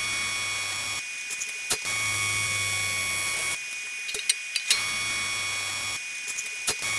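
AC TIG welding arc on aluminum, buzzing steadily in three short bursts of one to one and a half seconds, with a fourth starting at the end. Light clicks and taps fall in the pauses between the welds.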